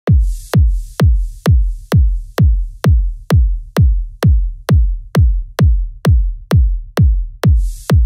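Techno track opening on a bare four-on-the-floor drum machine kick, a deep thud with a falling pitch about twice a second. A high hiss rides the first few beats, fades away, then swells back in near the end.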